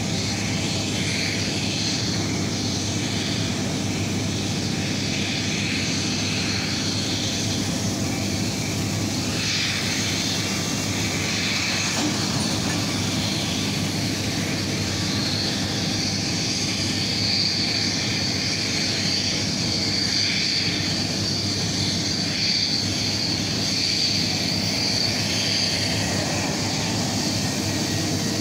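Steady rumble and high whine of aircraft turbine engines on an airport apron, the whine growing louder from about halfway through.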